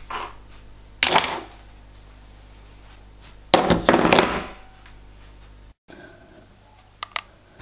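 Camera gear being handled and set down on a desk: a short knock about a second in, a longer clatter at about three and a half seconds, and two small clicks near the end, over a low steady hum.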